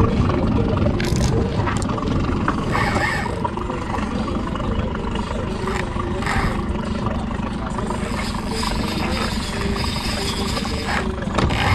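Boat engine running steadily, with scattered clicks and knocks of gear being handled.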